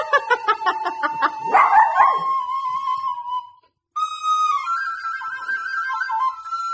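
Wooden recorder holding piped notes while a Maltese dog yips rapidly and then howls along with it. The sound cuts out briefly a little past the middle, then the recorder plays a short run of higher notes.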